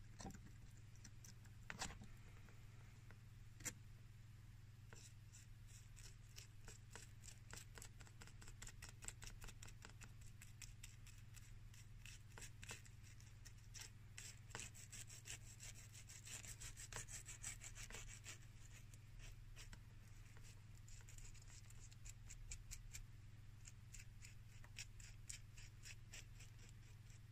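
Faint, scratchy strokes of a bristle glue brush spreading glue onto shoe leather: a few light knocks at first, then long runs of quick brushing strokes from a few seconds in until near the end, over a low steady hum.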